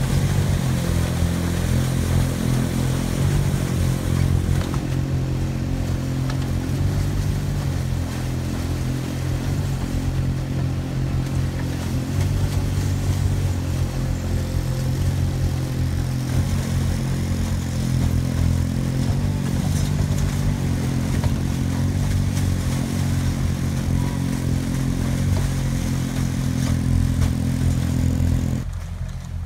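Engines of two paddle-wheel aquatic weed-cutting boats running steadily, with the paddle wheels churning through water and weed. Part of the engine sound drops away near the end.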